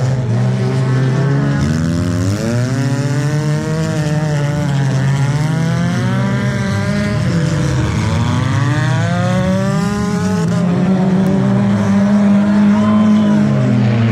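Several junk race cars' engines running hard together on a dirt oval. Their overlapping pitches keep rising and falling as the drivers accelerate and lift.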